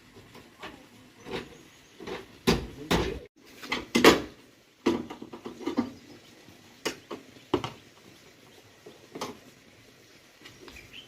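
A series of irregular knocks and clunks, some sharp and some duller, with the loudest cluster about two to four seconds in and fewer, lighter ones after.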